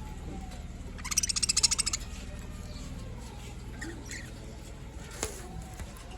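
Budgerigars chirping: about a second in, a loud, rapid buzzing trill lasts about a second, followed by scattered faint short chirps and a single click, over a steady low hum.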